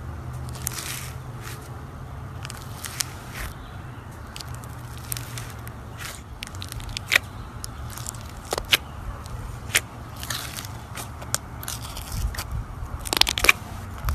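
Slime being squeezed and pressed by hand, giving irregular crackles and sharp pops, with a denser run of pops near the end.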